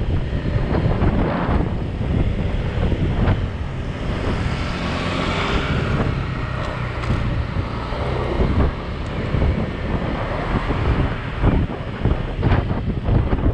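Wind rushing over the microphone of a Honda PCX scooter on the move, with the scooter's engine and road noise underneath. The rush swells for a couple of seconds near the middle.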